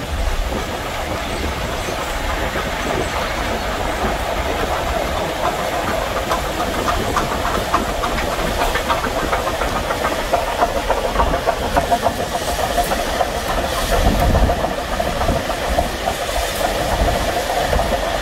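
Union Pacific 4014 Big Boy steam locomotive and its train running by, a steady rush with a fast regular rhythm through the middle. It is heard from a vehicle driving alongside, with low road rumble underneath.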